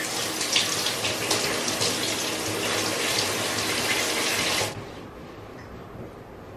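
Shower spray running over someone rinsing their hair: a steady rushing hiss of water that cuts off abruptly about three-quarters of the way through, leaving quiet room tone.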